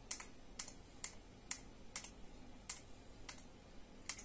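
Sharp plastic clicks, about eight in quick irregular succession, as the controls of an electronic DC load tester are worked by hand, bringing the discharge current down to zero to end a battery discharge test.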